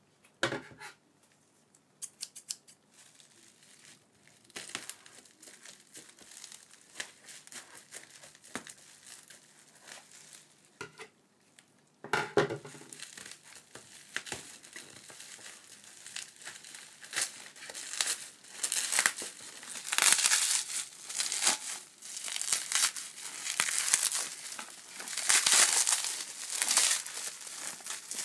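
Plastic bubble wrap crinkling and crackling as gloved hands handle it and peel it off a small package. It is sparse and light at first, then turns busier from about halfway through and louder still in the last third.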